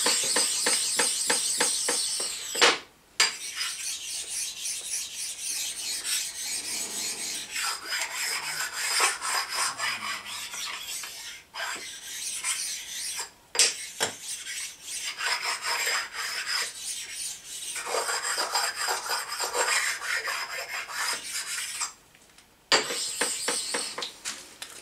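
A precision ground bench stone is stroked rapidly back and forth along the cast-iron ways of an Atlas 10F lathe, making a dry rasping scrape. The stone is polishing the ways and knocking down dings and raised spots. The scraping stops briefly a few times.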